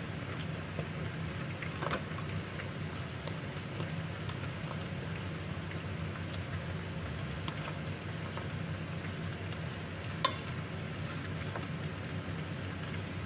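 Chicken breast frying in a garlic sauce in a nonstick pan: a steady sizzle with scattered crackles and one sharper pop about ten seconds in.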